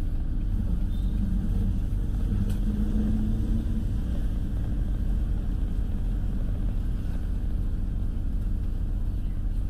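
Steady low rumble of engine and tyre noise inside a moving car's cabin, with a faint hum showing over it for the first few seconds.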